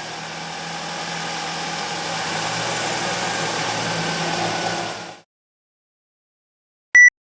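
Car engine idling just after starting, running steadily and rising slightly in level, then cutting off suddenly about five seconds in. After a pause, a short, loud, high beep sounds once near the end.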